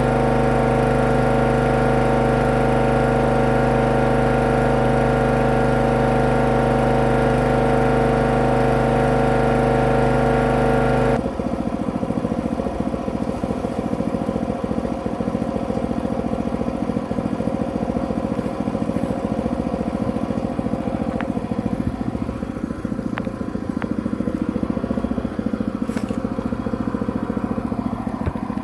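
Motor of a drain-cleaning spring machine running steadily while clearing a blocked drain. About eleven seconds in, the sound changes abruptly to a rougher, rattling run with scattered clicks.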